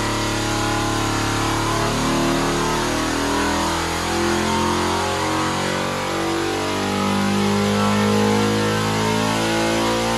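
A cast-iron 426 Hemi V8 running steadily on an engine dynamometer, fed by twin genuine Hemi carburettors.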